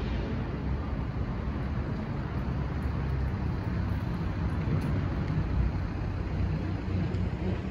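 Steady low rumble of urban outdoor background noise, with no clear single event standing out.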